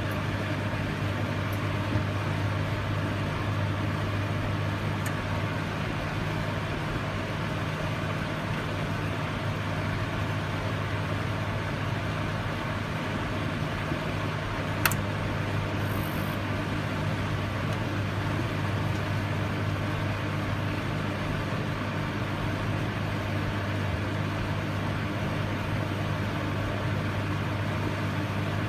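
Microwave oven running: a steady electrical hum with a deep low drone, and a single sharp click about halfway through.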